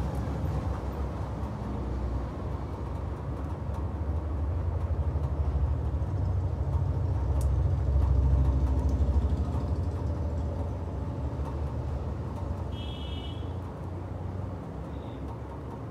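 Low, steady motor-vehicle rumble that swells about halfway through and then eases off. A short high chirp sounds near the end, and there is a faint click about seven seconds in.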